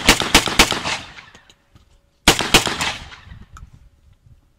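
Rapid gunfire from an AK-pattern firearm, about four shots a second. A string of shots ends about a second in, and three more follow in quick succession about two seconds in, each with a short echo.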